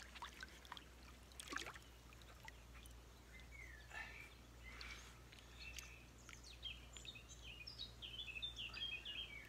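Faint small splashes and dribbling of river water as hands work a brown trout in a landing net, with birds chirping in quick runs in the second half.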